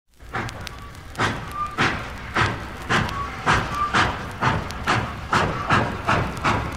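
Steam locomotive sound effect: rhythmic chuffing that starts slow and gradually speeds up, like an engine pulling away, with a few brief high tones between chuffs.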